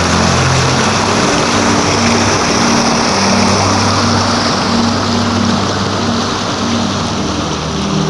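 River rapids rushing over rocks, a loud, steady sound of white water, with low held notes of background music changing every second or so.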